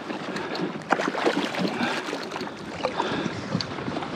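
Water splashing and slapping around a plastic fishing kayak, with many short sharp splashes and knocks, as a hooked king mackerel is brought alongside at the surface. Wind on the microphone.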